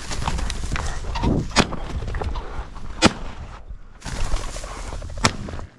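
Rustling of tall dry grass as a bird dog pushes through it, with wind buffeting the microphone and three sharp snaps, the loudest about three seconds in. The sound drops out briefly just past halfway.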